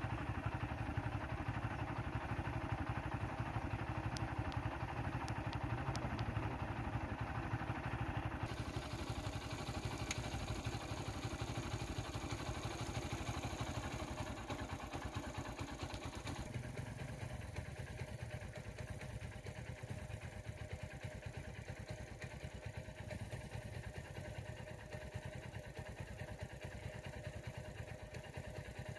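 Small motorcycle engine idling steadily, a low even rumble that runs on without revving.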